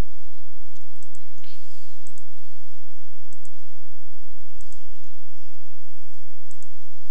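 Computer mouse buttons clicking a handful of times at irregular intervals, over a steady electrical hum and hiss.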